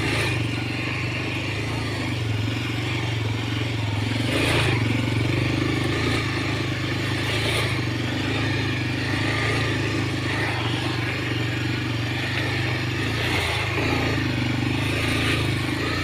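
Motorbike engine running steadily while riding, with a steady hum.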